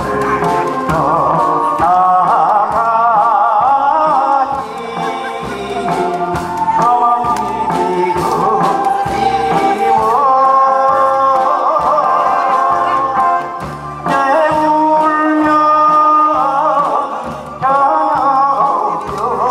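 A man singing a Korean trot song with vibrato into a handheld microphone, over a backing track with a steady beat.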